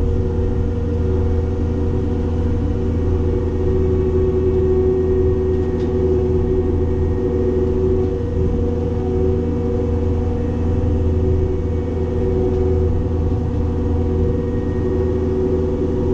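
Cat 262D skid steer's diesel engine running steadily while driving a Loflin open-front brush cutter, a constant low drone with a steady hum above it.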